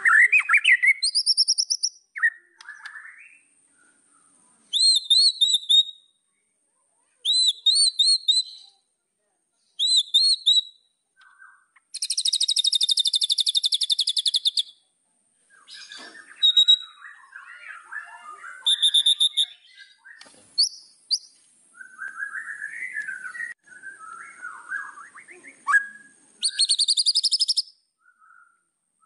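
White-rumped shama (murai batu) singing: repeated short high whistled phrases, then a long rapid trill in the middle, followed by a stretch of varied, lower twittering and chatter with another short trill near the end.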